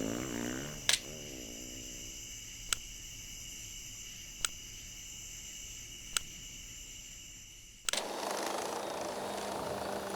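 Four sharp clicks, evenly spaced about a second and three-quarters apart, over faint steady hiss, then a soft rush of noise that starts abruptly near the end.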